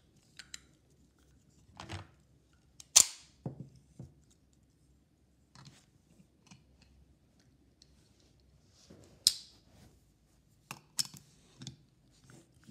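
Small plastic toys being handled: a toy food pop pressed and tapped against a plastic doll's mouth, giving scattered clicks and taps, the sharpest about three and nine seconds in.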